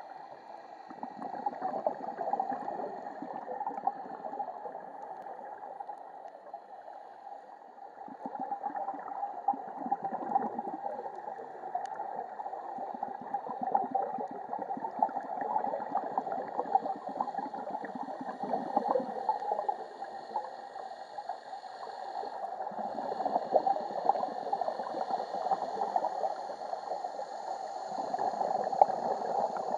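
Underwater sound as heard through a housed camera: a steady watery hiss with bubbling surges every few seconds from scuba divers' exhaled air.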